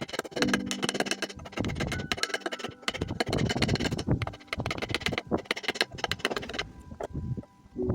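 Busy percussive music with quick wood-block-like knocks and short held low notes; it drops out briefly near the end, then starts again.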